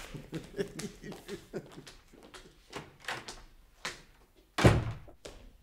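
Footsteps as a series of light, irregular knocks, then a door shut with one loud, heavy thud about four and a half seconds in.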